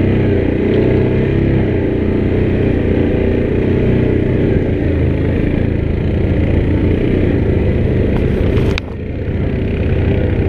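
2019 Yamaha Grizzly 700 ATV's single-cylinder four-stroke engine running steadily while riding a woods trail. The engine sound drops off briefly near the end, then picks back up.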